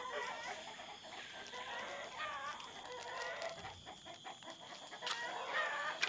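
Domestic chickens clucking, short calls repeated again and again.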